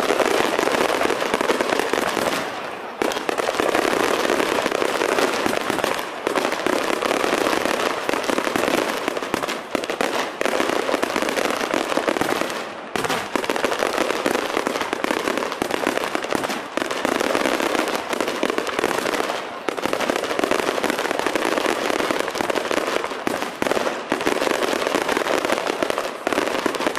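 Fireworks display: a dense, continuous barrage of rapid crackling bangs, with a few brief lulls every few seconds.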